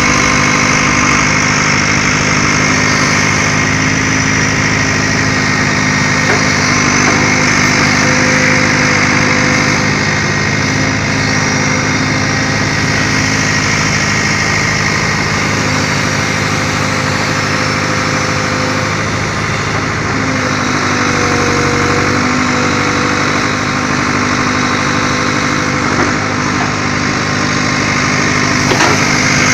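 Komatsu hydraulic excavator's diesel engine running steadily, its pitch shifting briefly about two-thirds of the way through.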